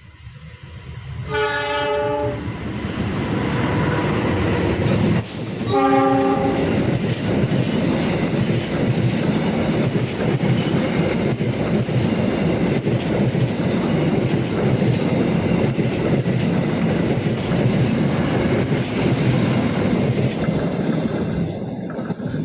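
A train passing at speed, sounding its horn twice, about a second in and again about six seconds in, followed by a long steady rumble and clatter of wheels on the rails that fades near the end.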